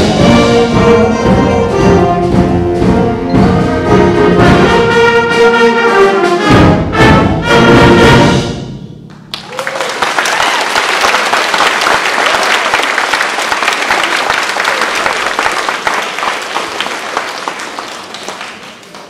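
Student concert band with brass playing the loud closing chords of a piece, cut off about eight and a half seconds in. Audience applause follows and dies away near the end.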